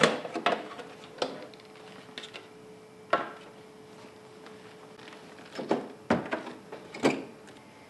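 Sharp plastic clicks and knocks from the carrying handle of a Fluke bench oscilloscope as its grey side hubs are pulled out and twisted to reposition the handle, with the heavy instrument being shifted on the bench. About seven separate knocks come at irregular intervals.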